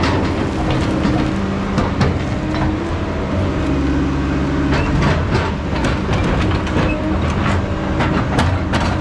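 Heavy diesel logging equipment running steadily, with many sharp knocks and clanks over the engine sound.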